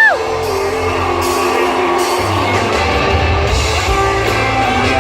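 Country-rock band music: a long held high note slides down and ends at the start, then guitar, bass and drums play on, the bass heavier from about two seconds in.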